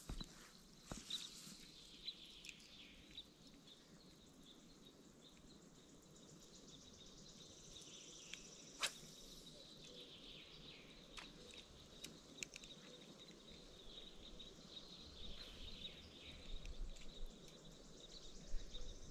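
Faint birdsong, many short high chirps, over quiet open-air ambience, with a few sharp clicks now and then.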